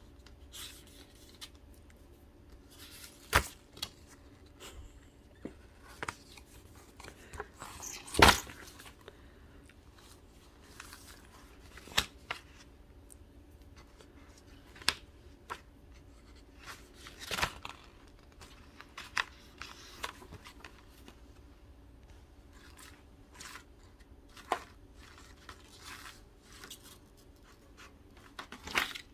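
Paper booklet pages rustling and crinkling in short, scattered bursts as a cat paws and mouths them, with sharp clicks and taps in between and the loudest burst about eight seconds in. A faint steady hum runs underneath.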